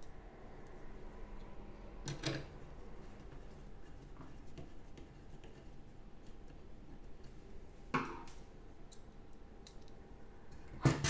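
Faint small clicks and taps of hand tools and metal parts being handled while screwing together a graphics card's fan shroud assembly, with two short louder rustling knocks about 2 seconds and 8 seconds in.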